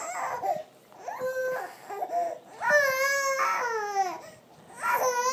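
Infant crying in a string of fussy wails, one longer wail in the middle, while lying face down on her tummy.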